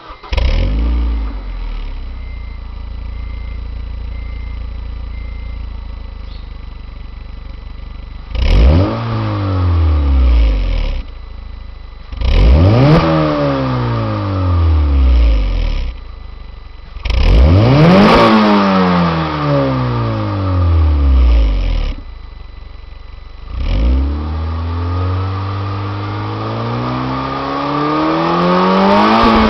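A 2007 Honda Civic EX's four-cylinder engine is started with a new Tanabe Medallion cat-back exhaust fitted and heard right at the tailpipe. It catches at once and idles steadily, then is revved four times, each rev dropping slowly back toward idle. The last rev is a slow climb near the end.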